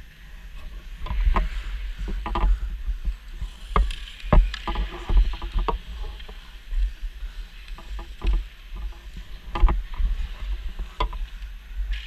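Hockey goalie's equipment rubbing and knocking close to the camera while he skates, with repeated sharp knocks over a deep rumble. Skate blades make a scraping hiss on the ice, strongest a few seconds in.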